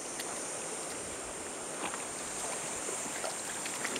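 Steady rush of a fast, shallow river current.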